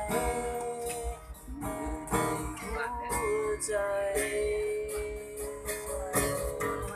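Acoustic guitar strummed as accompaniment, with a singer holding one long sung note in the middle.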